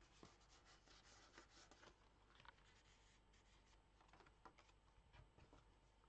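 Faint rustling, sliding and light taps of card stock and paper as a handmade paper folio is handled: a journaling card slid out of its pocket and the folio turned over. The handling sounds come in a cluster over the first three seconds and again from about four to five and a half seconds in.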